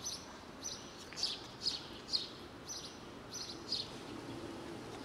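Small birds chirping outdoors: short, high chirps in quick groups, about twice a second, stopping about four seconds in.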